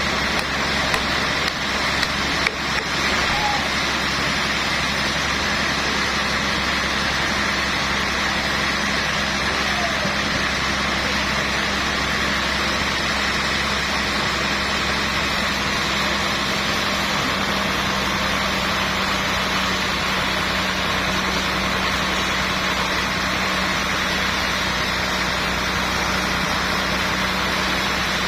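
Sawmill machinery running steadily at constant speed: an even engine or motor drone with a steady low hum. There are a few light knocks about two seconds in.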